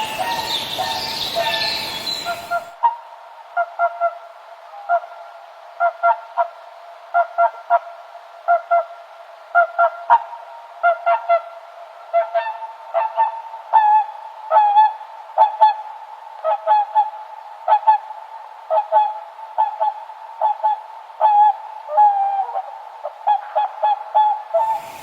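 Swans honking: many short, nasal calls, singly and in quick runs of two to four, overlapping at times, in a recording that sounds thin with no low end. A couple of seconds of noisy rumble and hiss come first.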